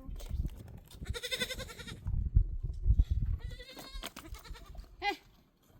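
Livestock bleating: three quavering calls, two longer ones and a short one near the end, over low rumbling and knocking noise.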